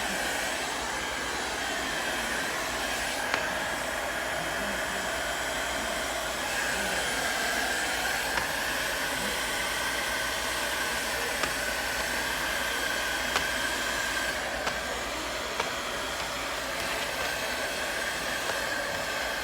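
Handheld hot-air blower running steadily with a whine that wavers slightly in pitch, heating wallpaper to soften it and drive out a trapped air bubble.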